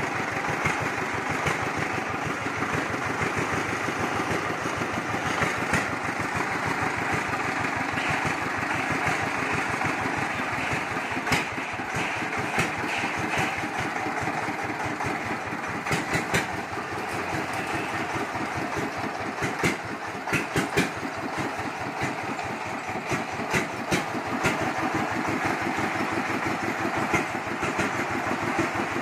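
Single-cylinder horizontal diesel engine of a công nông farm vehicle running with a rapid, even firing beat as the vehicle drives slowly, with a few sharper clicks and rattles over it.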